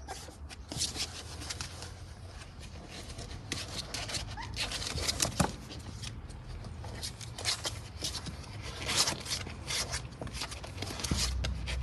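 Golden retriever puppies' claws scratching and scrabbling on a cardboard box as they climb out over its edge, with the cardboard rustling. Irregular scratchy clicks and rasps.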